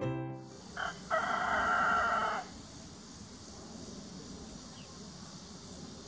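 A rooster crows once: a short note, then a long held one, with piano music ending just before it. A steady high hiss of insects runs behind it.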